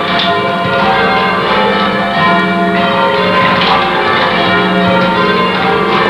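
Church bells being change-rung by ringers on the ropes, heard from the ringing chamber: a continuous run of bell strikes, each ringing on and overlapping the next.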